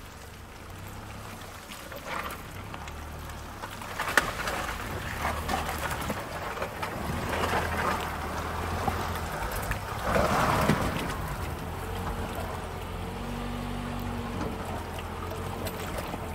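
Car's front wheel, wrapped in snow chains, churning slowly through a deep muddy puddle. Water sloshes and splashes in uneven surges, loudest about ten seconds in, over a steady low engine hum.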